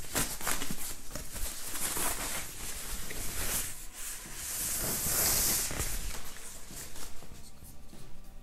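Protective wrapping rustling and crinkling as it is pulled off a hydrofoil front wing, with small crackles throughout and a louder, longer rustle about halfway through, then quieter near the end.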